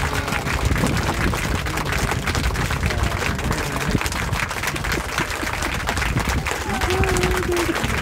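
Outdoor street noise: a steady rushing haze with a low rumble and scattered crackles, and faint voices of passers-by, one brief voice sound about seven seconds in.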